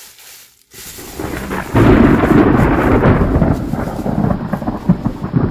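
Plastic packaging and bubble wrap crinkling and rustling as items are handled in a cardboard box. It starts faint about a second in, then turns very loud from about two seconds in, a dense crackle of small clicks.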